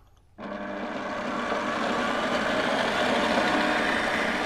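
Stand mixer switched on about half a second in, then running steadily as its whisk beats the hot marshmallow syrup to whip it and cool it to 25 °C.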